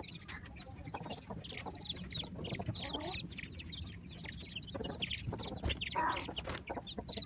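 Chickens clucking, with many short high-pitched calls one after another, faint.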